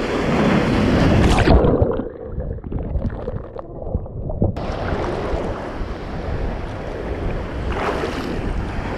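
A wave breaking and rushing over a GoPro held at water level, loudest about a second and a half in. The sound then goes muffled as the camera is washed under, and clears about three seconds later to water sloshing and wind buffeting the microphone.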